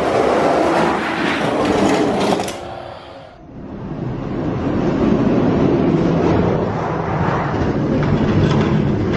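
Three Hot Wheels diecast monster trucks rolling fast down a plastic drag-strip track: a steady rolling rumble, dipping briefly about three seconds in, with a few light clacks near the end.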